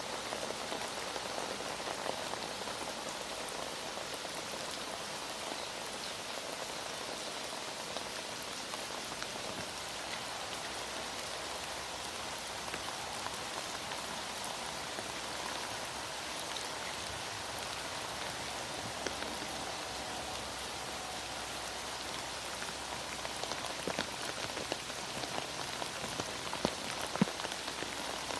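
Heavy rain falling steadily, an even dense hiss of drops, with a few sharper clicks near the end.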